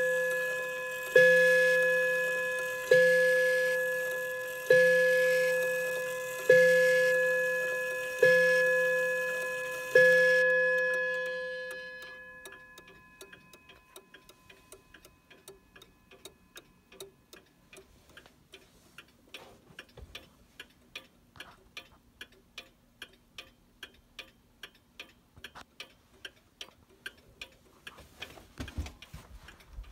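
Pendulum clock's striking mechanism rings one note six times, about every 1.8 s, each stroke ringing out and fading; the evenly spaced strokes are the clock striking the hour. After the last stroke dies away, the clock's escapement ticks on steadily, about two ticks a second, with a handling bump near the end.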